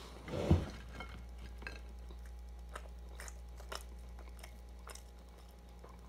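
A person chewing a Big Mac and French fries close to the microphone: small scattered mouth clicks and soft crunches, after a short louder rush of noise about half a second in.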